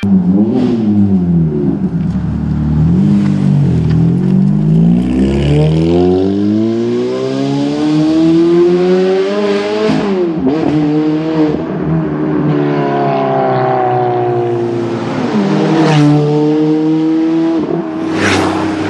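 Ferrari F430's V8 engine accelerating hard through the gears: its pitch climbs again and again, then breaks off at each shift, over several runs. A loud sharp crack comes near the end.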